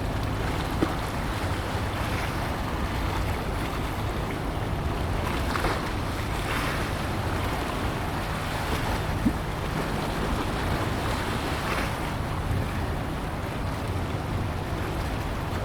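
Wind rushing on the microphone and water washing, over a steady low drone. Two faint short knocks come about a second in and about nine seconds in.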